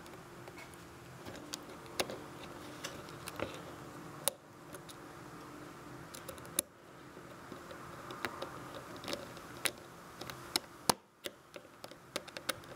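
Screwdriver turning the small screws of a metal cord clamp into a plastic GFCI plug: scattered small clicks and taps of the tool and the plug being handled, over a faint steady hum.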